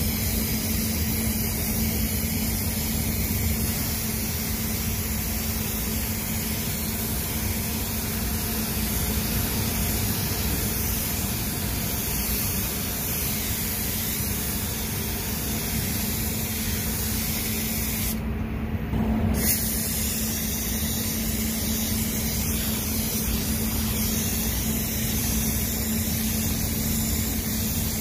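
Gravity-feed spray gun hissing steadily as it atomises paint onto a car hood, with one short break about two-thirds of the way through when the trigger is let off, then spraying again. A steady low hum runs underneath throughout.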